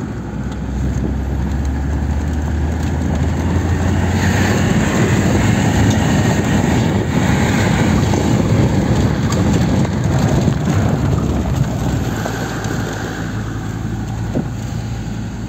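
Land Rover Defender 110 heard from inside its cab while driving on a dirt road: a steady low engine hum under the rough rumble and rattle of the vehicle, getting louder about four seconds in and easing off again toward the end.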